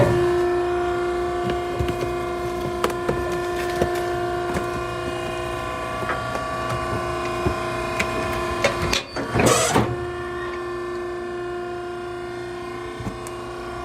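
Maren cardboard baler's hydraulic power unit running with a steady motor hum and whine, with a short rustling clatter of cardboard just before ten seconds in.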